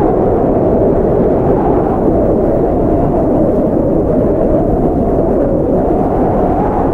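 Blizzard wind blowing hard: a steady, deep rush of air with a faint howling tone that wavers slowly in pitch.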